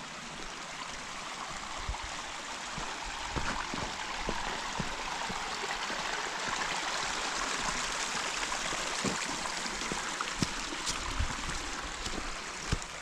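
A mountain brook rushing steadily, swelling a little toward the middle, with a few scattered brief knocks.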